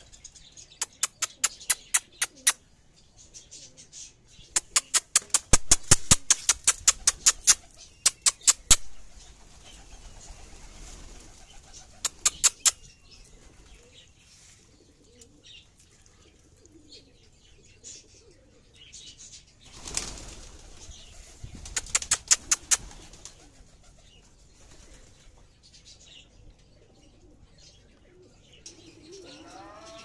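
Goly pigeons clapping their wings in quick runs of sharp claps, several claps a second, as they take off and fly about. There are about five such runs, with faint cooing between them.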